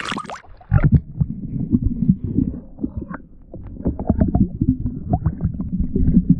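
Brief splash as a hand and fish go into the water, then muffled gurgling and sloshing heard with the microphone underwater as a speckled trout is released.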